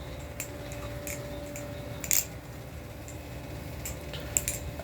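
Balisong (butterfly knife) being flipped: a few sharp metallic clicks and clacks of the handles, the loudest about two seconds in. A steady low hum runs underneath.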